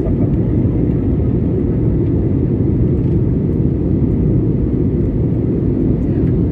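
Steady drone of an airliner in flight, the engines and rushing air heard from inside the aircraft as a deep, even rumble.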